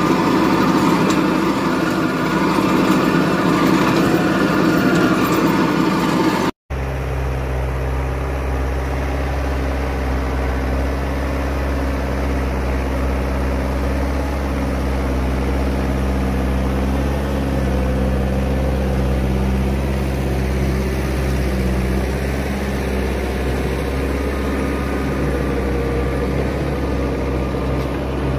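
Hürlimann XT 909 tractor's diesel engine running steadily under load while pulling a rotary harrow through stubble. About six and a half seconds in the sound cuts out for an instant. It then goes on as a deeper, steady engine drone.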